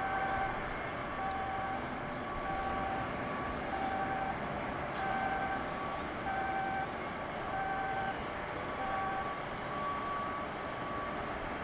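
Electronic warning alarm beeping in a repeating pattern of short tones at two or three pitches, about one and a half beeps a second, over a steady background of industrial noise.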